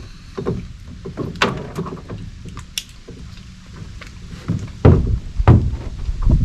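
Irregular knocks and thumps of gear and footing in a small fishing boat. The two loudest knocks come close together about five seconds in.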